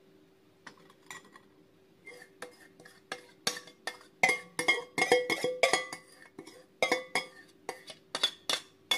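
A utensil knocking and scraping inside a stainless steel mixing bowl, the bowl ringing after each knock, as the last of the mango cream mixture is scraped out. The knocks come irregularly, many in quick succession around the middle.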